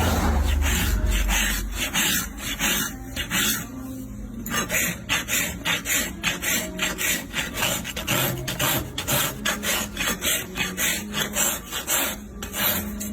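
Farrier's hoof rasp filing down a horse's hoof wall in quick strokes, about two to three a second, with a short pause about four seconds in. A dull low thump sounds at the very start.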